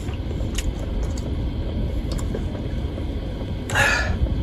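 Strong wind buffeting the RV, a steady low rumble heard inside the cabin, with a few faint clicks and a short rustle a little before the end.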